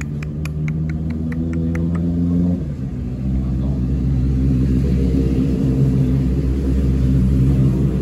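A motor or engine running steadily with a low drone, over a quick ticking at about three a second that stops after two seconds. About two and a half seconds in, its pitch shifts and it runs a little louder.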